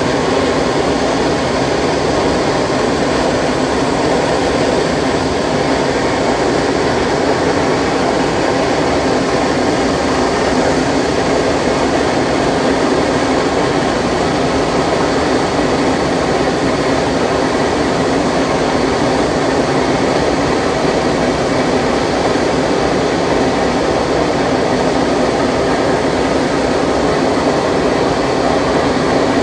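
Rocket engine firing on a static test stand: a loud, steady roar of exhaust noise that holds at the same level without a break.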